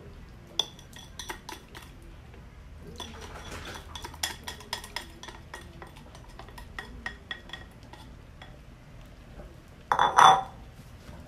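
Spatula scraping and tapping against a bowl as it is emptied into a cooking pot, many small clinks and scrapes. About ten seconds in, one louder clank as the spatula is set down against the pot.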